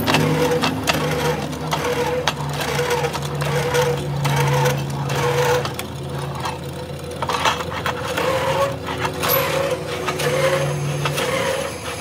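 Pillar drilling machine running, its bit cutting bolt holes through a thick steel wheel plate: a steady motor hum with irregular scraping and clicking as the steel chips break away.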